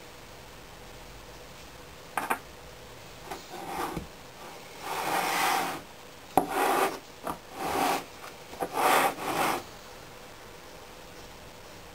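A knife scraping packed casting sand in a wooden moulding flask, and the flask being handled on a wooden table: a series of short scraping and rubbing noises, with a sharp knock about six seconds in.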